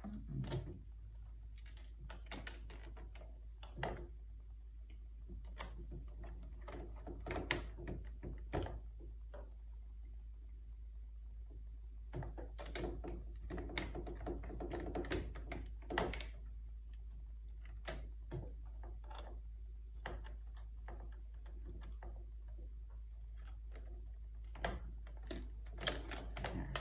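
Irregular small clicks, taps and scrapes of a laptop's plastic case, hinge parts and screws being handled during reassembly, in scattered clusters over a steady low hum.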